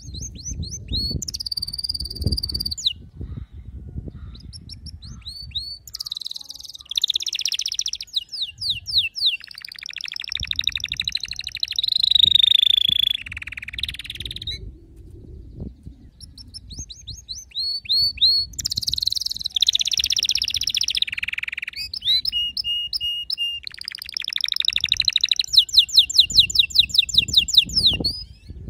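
Domestic canary singing a long, varied song of quick repeated chips, rapid trills and rolls, and held buzzy passages, broken by short pauses between phrases. The loudest, fastest trills come about twelve seconds in and again near the end, over a low rumble.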